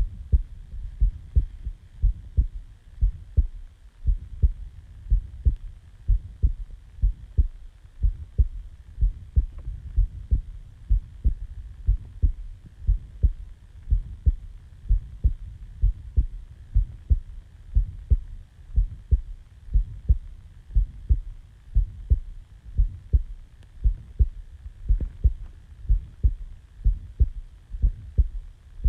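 A person's resting heartbeat just after waking, recorded close to the chest: a steady, even rhythm of soft low thumps.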